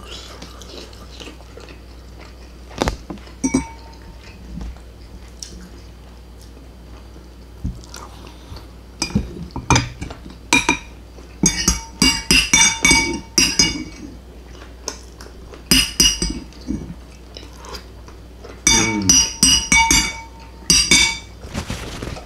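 Metal spoon scraping and clinking against a ceramic bowl, in several runs of quick clinks that ring briefly, mostly in the second half.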